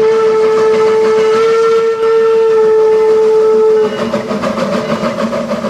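Steam locomotive whistle held in one long steady blast, cutting off about four seconds in. The rumble of the train running on goes on underneath and fades near the end.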